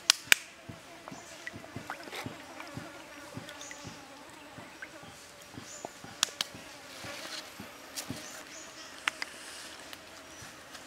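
Raw chicken thigh being rinsed and rubbed by hand in stream water: a few sharp splashes and drips just after the start, again midway and near the end, with soft wet taps of hands working the meat. An insect buzzes faintly and steadily underneath.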